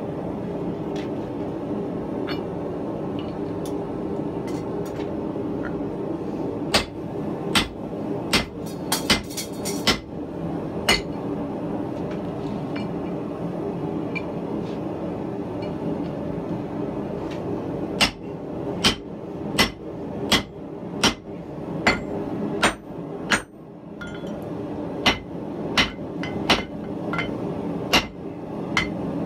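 Blacksmith's hand hammer striking hot 4140 steel on a Harbor Freight anvil: a run of about half a dozen blows a few seconds in, a pause, then regular blows about one every three-quarters of a second through the second half. A steady roar from the running forge lies under it all.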